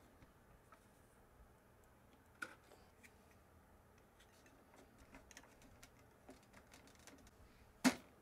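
Faint metallic and plastic clicks of a small wrench on a propeller nut and a plastic spinner being fitted onto an electric RC plane's motor. A few scattered ticks come near the middle, with one sharper, louder click near the end.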